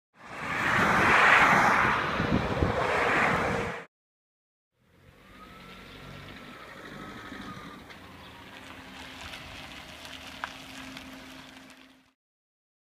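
Car and lorry passing close on a motorway: a loud rush of tyre and engine noise that swells twice and then cuts off abruptly. After a second of silence comes a much fainter, steady outdoor hum.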